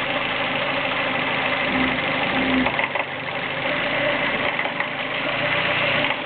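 Vehicle engine idling steadily, with a knock coming from a pump, which the owner hears as a faulty pump.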